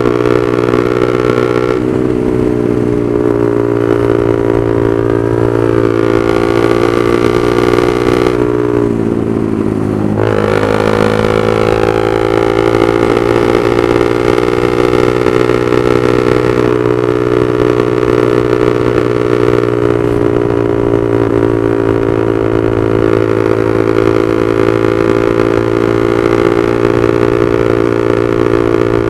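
Honda CB150R's single-cylinder engine running through a Proliner aftermarket exhaust while the bike is ridden, a steady exhaust note. About nine seconds in the pitch drops and then climbs again as the engine comes off and back on the throttle.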